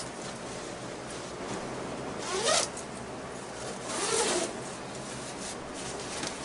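Zippers on an insulated blaze-orange hunting suit being pulled open: two long zips, about two and a half and four seconds in.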